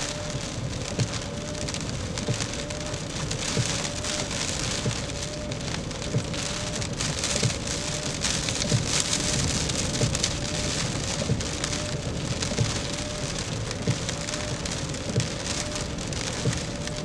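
Hurricane rain and wind: a steady rush of noise peppered with many small hits. A faint wavering whistle carries on underneath throughout.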